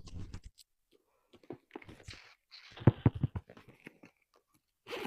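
Rummaging in a handbag: scattered clicks and rustles, with a cluster of knocks about three seconds in as items are handled.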